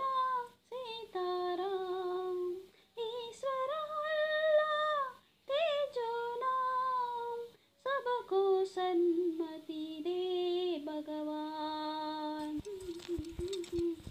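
A solo voice humming a slow wordless melody in long held, sliding phrases, the sung introduction to a Telugu film song. Near the end, low drum beats come in under it.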